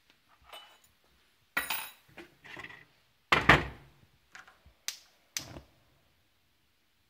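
A series of short knocks and clinks of small hard objects being handled and set down on a hard surface. The loudest comes about three and a half seconds in, and several lighter ones follow.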